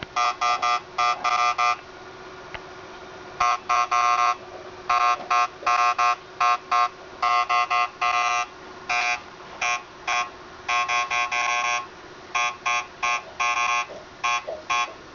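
Geiger counter beeping at random intervals, one short electronic beep per detected count, several a second in uneven clusters with a pause of about a second and a half near the start. The rain sample under the probe is reading around 200 counts a minute, well into the counter's alert levels.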